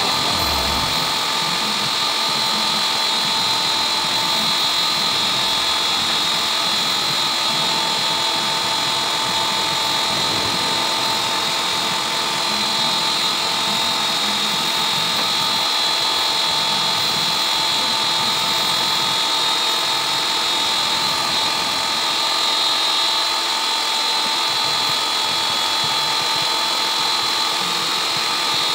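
Lavor electric pressure washer running steadily, a constant high whine from its motor and pump while the water jet sprays.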